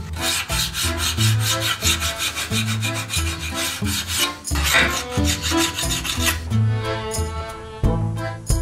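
Hand file rasping across a metal part clamped in a bench vise, in quick repeated strokes, over background music.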